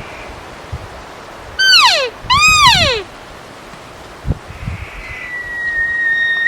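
Elk calls: two short high mews about two seconds in, each sliding steeply down in pitch, then near the end a long, steady high whistle like the start of a bull elk's bugle.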